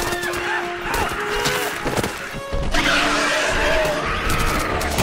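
Action-film soundtrack: dramatic music with a monster's shrieking cry that swells loud about three seconds in.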